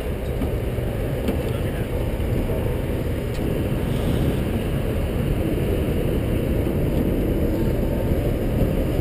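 Steady low engine rumble, with no change in pitch or level.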